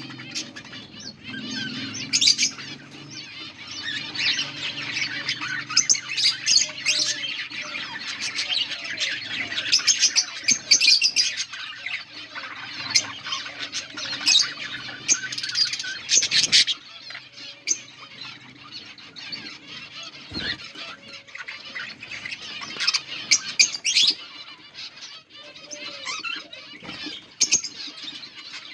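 A colony of budgerigars chirping and chattering continuously, with frequent sharp squawks.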